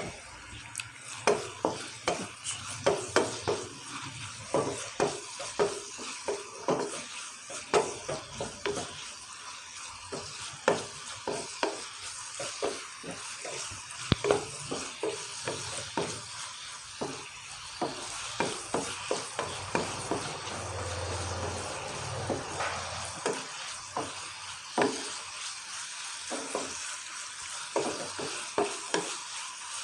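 Chicken pieces sizzling in oil in a nonstick pan, stirred with a wooden spatula that scrapes and knocks against the pan again and again over a steady frying hiss.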